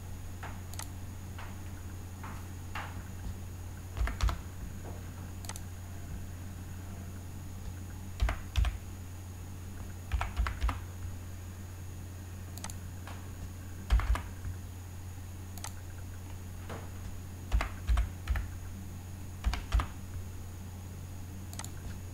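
Computer keyboard keys tapped in short, irregular clusters of one to three strokes, typing numbers into a data-entry table, over a steady low hum.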